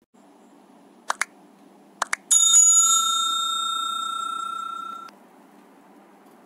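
Subscribe-button animation sound effects: two quick double clicks about a second apart, then a bell ringing once and fading for close to three seconds before it cuts off suddenly.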